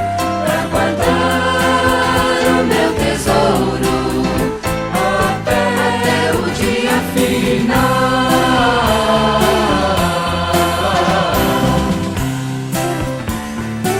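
Gospel song: a vocal group singing in harmony over a band with a steady beat.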